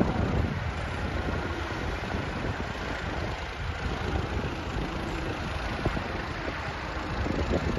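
Heavy machine's diesel engine running steadily, with a couple of brief louder moments.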